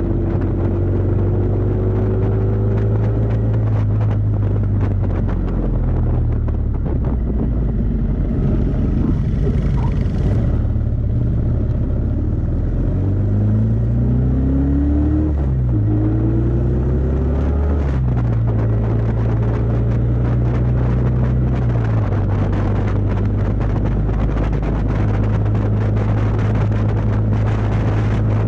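Kawasaki VN750 Vulcan's V-twin engine running at road speed, heard from on the moving bike. Its note holds steady, then slides down and back up in pitch around the middle as the revs change, before settling again.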